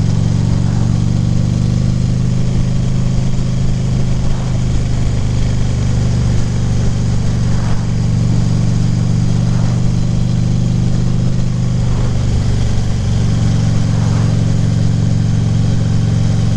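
2014 Harley-Davidson Ultra Classic Limited's V-twin engine running steadily while the motorcycle cruises.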